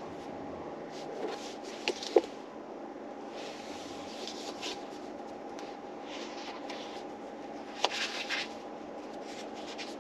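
Paper rustling as book pages are handled and turned, with a few short sharp clicks about two seconds in and again near eight seconds, over a steady background hum.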